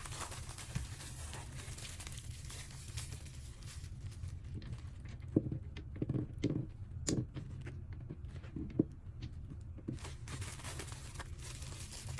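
Packaging being handled: faint crinkling and rustling, with a few short taps and knocks clustered in the middle, over a steady low hum.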